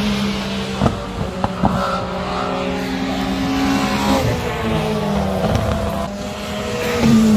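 Rally car engines revving hard as cars pass along the stage, the pitch stepping up and down through gear changes. A few sharp cracks come about a second in.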